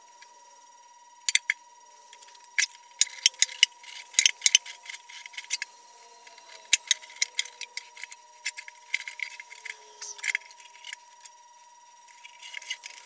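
Sped-up hand filing on a cast-iron lathe tailstock: quick, irregular metal scrapes and clicks as the brazed crack repair is worked down. A faint steady high tone runs underneath.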